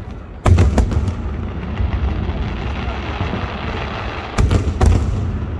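Aerial fireworks bursting: two sharp booms about half a second in, two more near the end, and a low rumble and noisy crackle between them.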